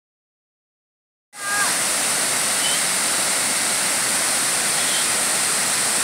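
Waterfall plunging into a rocky pool: a steady rush of falling water that cuts in suddenly about a second in, after silence.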